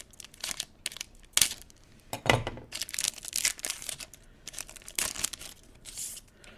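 Plastic trading-card pack wrappers being crinkled and torn open by hand, in a run of irregular crackles and rips.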